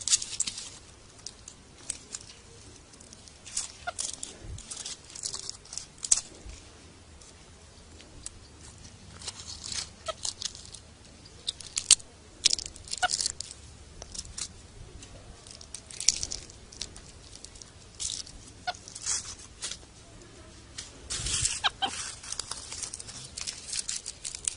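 Dry leaves rustling and crunching in short, irregular bursts, with a few brief animal calls now and then.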